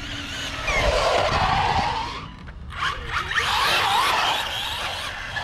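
Brushless-powered RC rally car with Mudboss tires sliding and accelerating on concrete. It gives two loud bursts, about a second in and again about three seconds in, each a hiss of tire skidding with the motor's whine gliding up and down.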